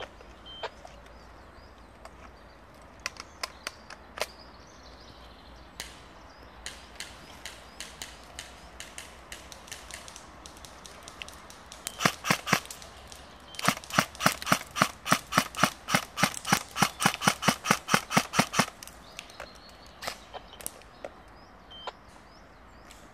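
Airsoft guns firing: scattered single shots, then a short quick burst about halfway through, followed by a steady string of rapid shots, about seven a second, for some five seconds.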